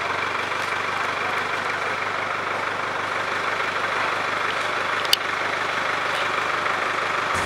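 A truck-mounted crane's engine idling steadily, with a single sharp click about five seconds in.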